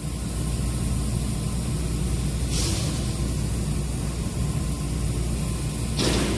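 4-roll hydraulic plate bending machine running, a steady low drone that builds up in the first half-second. A short hiss comes about two and a half seconds in, and a louder noisy rush near the end.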